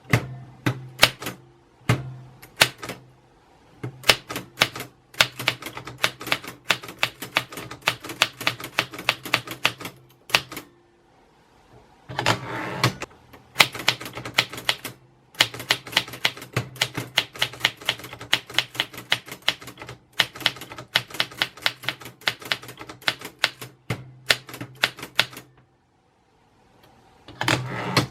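Typewriter keys striking in quick runs of several clacks a second, broken by short pauses and by two brief louder rasping stretches, one about twelve seconds in and one near the end.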